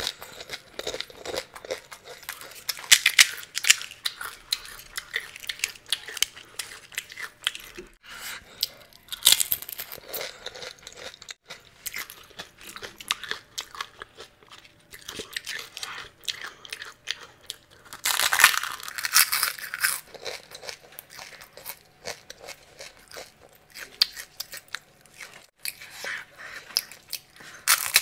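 Close-up crunching of crisp fried pani puri (golgappa) shells being bitten and chewed, with about four loud bursts of crackling and quieter chewing clicks in between.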